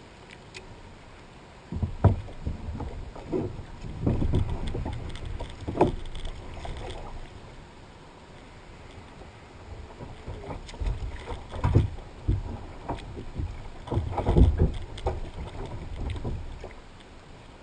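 Water sloshing and knocking against a small boat in two spells of irregular bursts, with a quieter lull in between.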